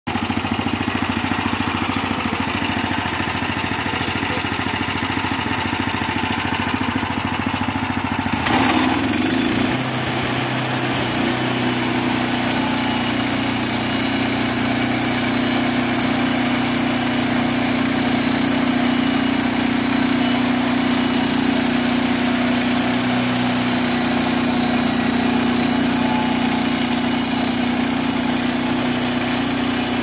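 Ducar SM310 portable bandsaw mill's small engine running steadily; about eight seconds in it speeds up and the band blade engages, then it runs on under load as the mill saws through a log.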